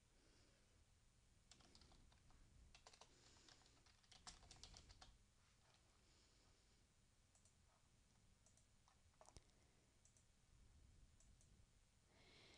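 Faint computer keyboard typing, a run of quick key clicks in the first few seconds, then a few scattered clicks over near silence.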